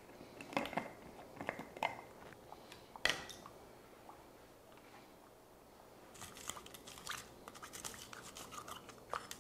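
Plastic lid of a Blendjet portable blender jar handled with clicks and set down with a sharp knock about three seconds in, then a chopstick poking and scraping among ice cubes in the jar, rapid small clicks and rattles through the last few seconds.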